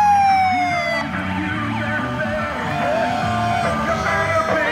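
A fire truck's siren winds down in one long falling wail and cuts off about a second in. After it, music with singing plays.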